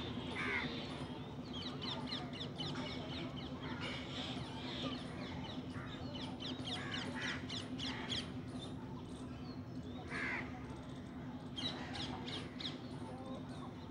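Animal calls: runs of short, quick high chirps, with a louder harsh call about half a second in and again about ten seconds in, over a steady low hum.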